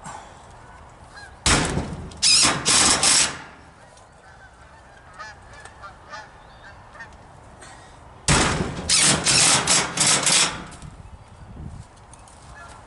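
Impact driver driving hex-head self-drilling screws into steel siding, twice: each a loud burst of rapid hammering about two seconds long, starting sharply.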